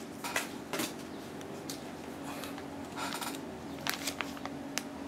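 Clear plastic zip-lock bag crinkling and rustling in the hands as the spare shoelaces inside are handled, in short scattered crackles, over a faint steady hum.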